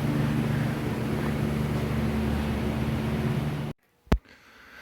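Jeep Comanche engine idling with a steady low hum. It cuts off suddenly near the end and is followed by a single sharp click.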